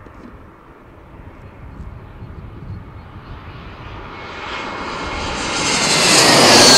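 Airbus A320-232's IAE V2500 turbofan engines on landing approach, growing steadily louder as the airliner closes in and passes low overhead, loudest near the end. A high engine whine drops in pitch as it goes by.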